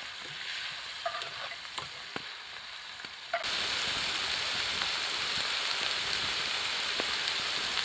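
Food frying in skillets over a campfire: a soft sizzle with the clicks and scrapes of a utensil against the pan, then, a little past a third of the way in, a louder, steady sizzle of a burger patty frying in a skillet with pasta and vegetables.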